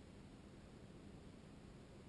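Near silence: a faint, steady low rumble of background noise with nothing happening in it.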